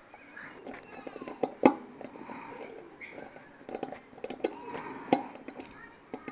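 Screwdriver driving a small screw into a thin stainless steel bowl, with irregular metallic clicks and knocks as the bowl and tool are handled. Two sharp knocks stand out, about a second and a half in and about five seconds in.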